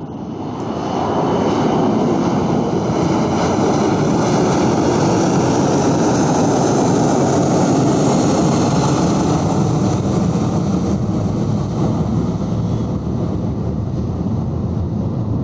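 Boeing 747-400's four turbofan engines at takeoff power as the jet climbs out past the listener: a loud, steady rumble with a hiss on top. It swells over the first second or two and eases slightly near the end as the aircraft moves away.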